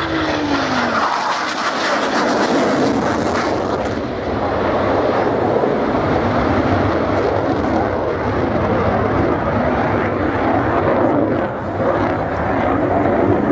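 Fixed-wing aircraft flying past. Its engine tone falls in pitch over about the first second, then gives way to a steady wash of engine and air noise.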